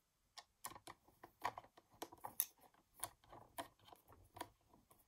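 Screwdriver turning a screw into the plastic housing of a Brother KH840 knitting machine carriage to fasten its handle: a run of small, irregular clicks and ticks, several a second.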